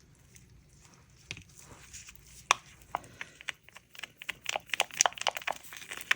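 A mixing stick clicking and scraping against a plastic cup as colorant is stirred into resin. It starts faint and sparse, then the clicks come quicker and louder from about halfway through.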